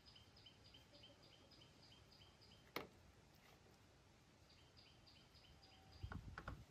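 Near silence with a faint, high chirping call repeating about three or four times a second in runs of a few seconds. One sharp click a little under three seconds in, and a few soft thumps on the wooden deck near the end as the baby macaque moves off.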